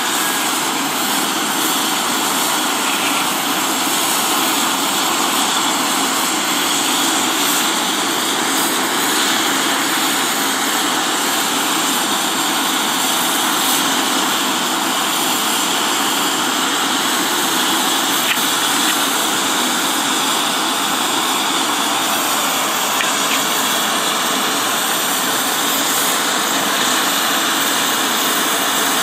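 Business jet's rear-mounted turbofan engines running steadily at ground idle: a continuous rushing noise with a high whine that does not change in level.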